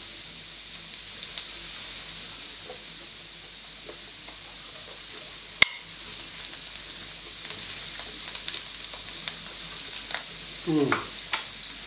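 Sliced king oyster mushrooms sizzling as they fry in a pan: a steady hiss, with clicks and scrapes of a knife stirring them, and one sharp click about halfway through.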